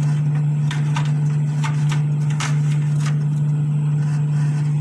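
Plastic ice cube tray sliding into a refrigerator's freezer compartment, giving several light clicks and knocks in the first three seconds. A steady low hum runs underneath throughout.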